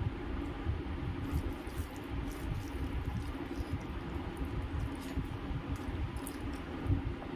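Fingers mixing and mashing rice wet with lime juice on a steel plate: soft wet squishing and faint clicks, over a steady low rumble.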